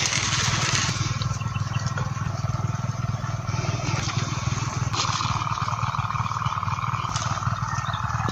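Small engine of an irrigation water pump running steadily, a low even drone with rapid firing pulses; a higher steady hum joins about five seconds in.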